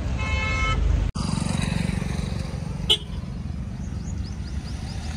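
A brief car horn toot, then after an abrupt cut a vehicle engine running steadily, with a sharp click about three seconds in.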